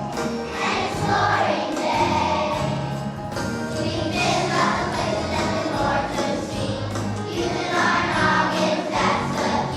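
A choir of second-grade children singing a song together over an instrumental accompaniment with a steady bass line.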